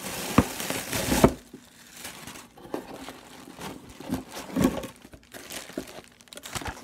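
Packaging crinkling and rustling as items are handled and unwrapped by hand, densest in the first second or so, then scattered smaller rustles and clicks.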